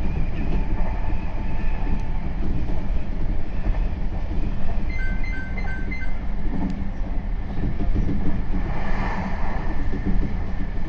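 Meitetsu 3500 series electric train running between stations, heard from inside the car: a steady rumble of wheels on rail. About halfway through there is a brief run of high, evenly spaced beeps.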